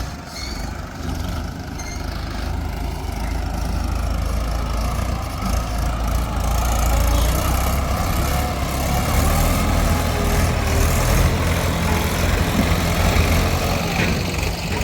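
Heavy diesel machinery engine running, growing louder over the first several seconds and then holding steady.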